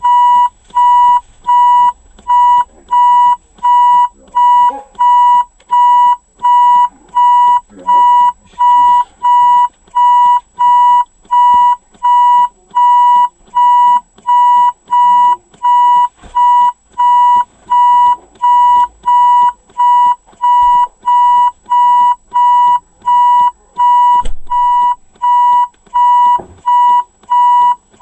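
Ford Fiesta reverse warning beeper: a steady single-pitched beep repeating evenly, about three beeps every two seconds, without speeding up.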